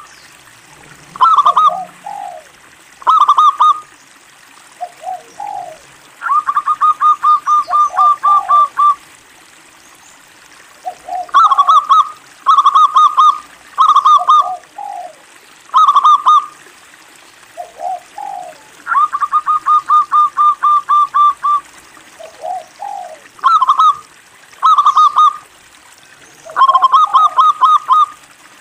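Zebra dove (local perkutut) in full song: short phrases of soft, clipped coos, each opening with a couple of lower notes. Twice, a long rapid run of coos lasts about two and a half seconds.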